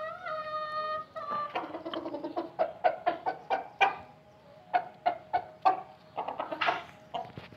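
Chickens calling: one long held call at the start, then a quick run of short clucks, about three or four a second, until near the end.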